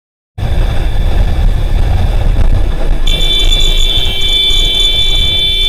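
Loud low rumble of a moving vehicle's wind and road noise. About three seconds in, a steady high-pitched tone joins it and holds for about two and a half seconds, then cuts off abruptly.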